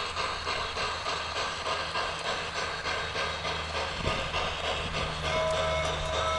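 Onboard sound unit of an Aristo-Craft G-scale model steam locomotive playing rhythmic steam chuffing as the engine runs, over a low hum. A steady whistle-like tone joins about five seconds in.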